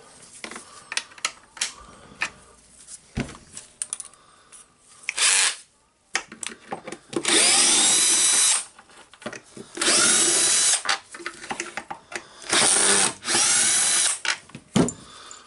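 Cordless drill-driver backing long screws out of a demolition hammer's handle housing. The motor runs several times, about a second each time, its whine rising as it spins up, with clicks and knocks of handling between runs.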